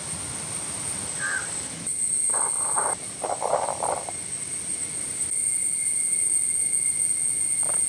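Outdoor insect chorus droning steadily at a high pitch, with a few short, harsh bird calls about two to four seconds in.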